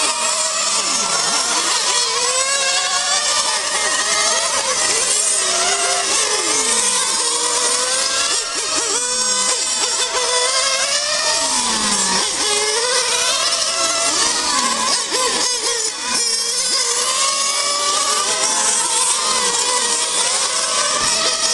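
Small engines of several radio-controlled racing cars running at once, a high buzzing whose pitch keeps rising and falling as the cars accelerate and brake round the track, now and then dropping sharply as a car passes.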